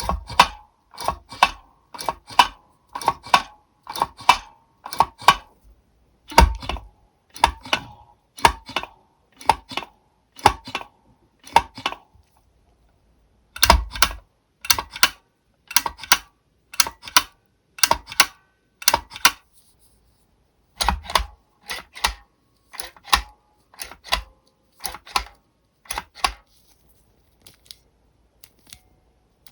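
A giant NovelKeys x Kailh Big Switch with a keycap fitted, pressed and released over and over, each stroke a sharp clack about a second apart. After a short pause about two-thirds of the way in, a standard-size Kailh Burnt Orange keyboard switch with no keycap is pressed the same way.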